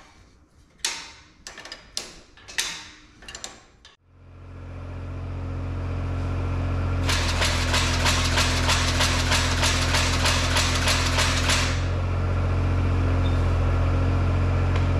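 A few sharp knocks and clicks of parts and hand tools. Then a mini excavator's engine hum builds up and runs steadily, and for about five seconds the excavator-mounted finger-bar mower's reciprocating knife runs with a rapid, even clatter before stopping while the engine keeps going.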